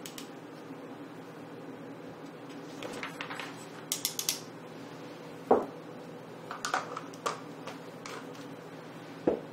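Small metal spoon scraping and tapping inside a fine mesh strainer held over a glass bowl, working powdered soap colorant through, in scattered clicks. Two sharper knocks, about five and a half seconds in and near the end, the first the loudest.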